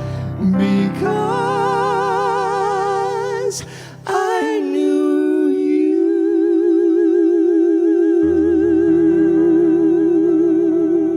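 A male singer holding long notes with wide vibrato over sustained accompaniment chords, with a brief break about four seconds in, then one long high held note. The chords underneath change about eight seconds in.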